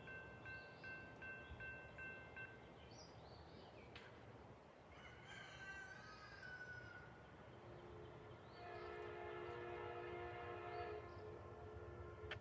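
Horn of the approaching Amtrak locomotive, faint and distant: a short, wavering blast about five seconds in, then a steady multi-note chord from about 8.5 s lasting roughly two and a half seconds. At the start, an evenly pulsing grade-crossing bell dings and stops about two and a half seconds in.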